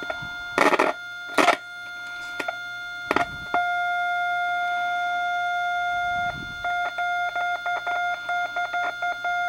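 Steady test tone from a signal tracer's speaker as the probe is held on a vacuum-tube amplifier stage that is not amplifying. The tone jumps louder about a third of the way in, then cuts in and out rapidly for a few seconds as the probe contact makes and breaks. Two loud scraping clicks from handling the probe come in the first second and a half.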